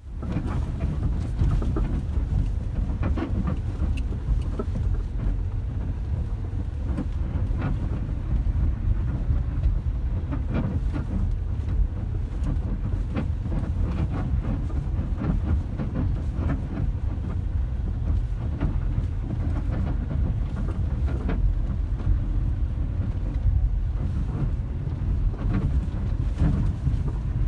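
Lada Vesta sedan's failed engine mount knocking: short, sharp, irregular knocks over the car's steady low rumble. It is the sound of a worn-out engine mount.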